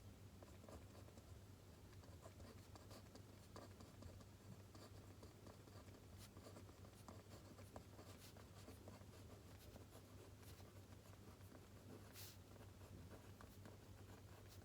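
Faint pen strokes scratching on paper, in irregular short strokes over a steady low hum.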